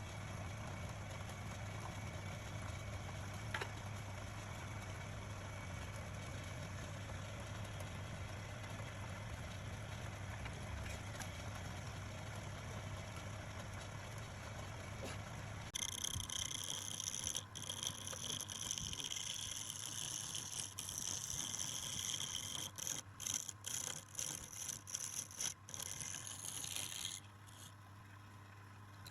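Woodturning lathe's electric motor humming steadily. About halfway through, a loud hissing scrape of a turning tool cutting the spinning wood takes over, in broken strokes, and it drops away shortly before the end.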